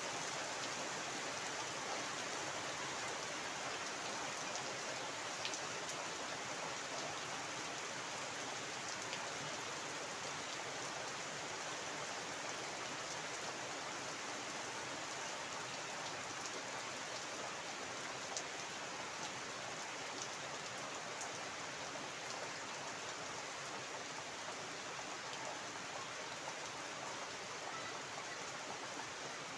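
Heavy rain falling steadily onto flooded ground and garden foliage: a dense, even hiss with the odd sharper drip tick.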